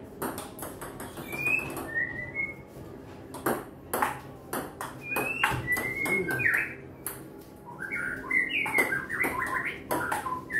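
A table tennis ball clicking sharply and irregularly against the table and bats in a rally. Short high chirps come now and then.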